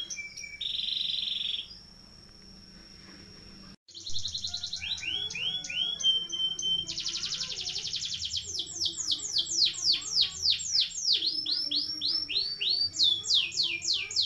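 Domestic canary singing a long rolling song: fast trills of repeated high sweeping notes, with a buzzy phrase about a second in and a brief gap near four seconds, then dense rapid rolls and runs of descending notes.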